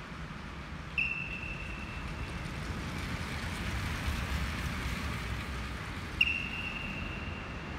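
Two long, steady whistle blasts about five seconds apart, blown by a coach, over the low rumble of a pack of track bikes riding past on the velodrome's banked track. The rumble swells midway as the riders pass close.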